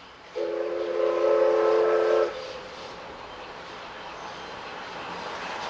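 Steam whistle of the C11 227 tank locomotive giving one blast of about two seconds, several notes sounding together. After it the train's running sound grows slowly as it approaches.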